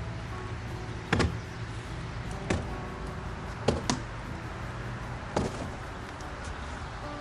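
Background music, broken by five sharp knocks at uneven intervals, two of them close together just before the middle.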